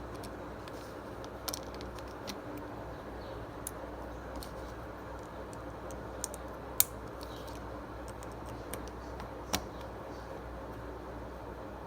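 Scattered clicks of plastic Lego bricks being handled and pressed together, the sharpest about seven seconds in, over a steady low hum.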